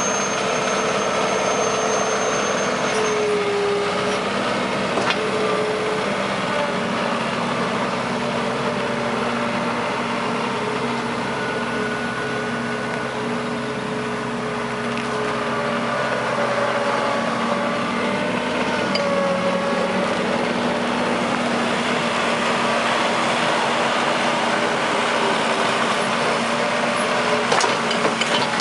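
New Holland LX665 skid steer's turbo diesel engine running steadily, with a whine above it that now and then shifts in pitch.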